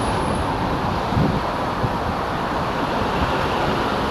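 Steady rush of wind on the microphone mixed with road traffic noise while cycling along a road, with a brief low thump about a second in.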